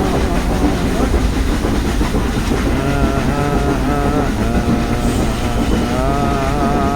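Nilgiri Mountain Railway toy train running along the track, a steady dense rumble from the moving carriage. A wavering pitched tone comes and goes twice over it, about three seconds in and again near the end.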